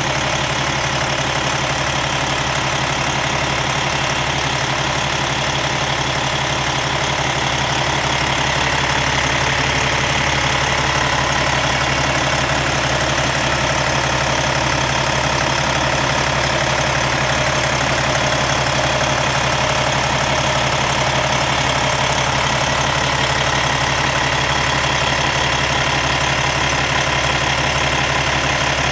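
Cummins diesel engine of a Kenworth T680 semi truck idling steadily, heard close up in the open engine bay.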